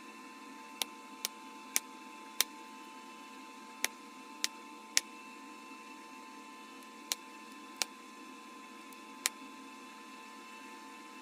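Glass from a bottle being knapped, giving about ten sharp, irregular clicks as flakes snap off its edge.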